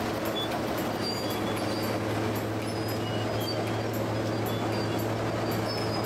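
Large crawler bulldozer's diesel engine running steadily with a low drone, faint high squeaks and rapid ticking over it.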